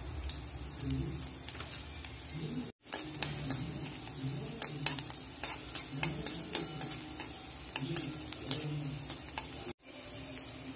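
Chopped green chillies sizzling in hot oil in a metal kadai. From about three seconds in, a spatula stirs them, scraping and tapping against the pan many times. The sound cuts out briefly twice.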